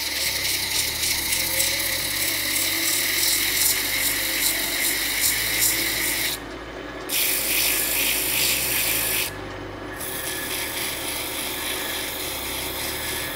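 Sandpaper held against a wooden wine-stopper blank spinning on a wood lathe: a steady sanding hiss over the lathe's running hum. The hiss breaks off twice, briefly, about halfway through.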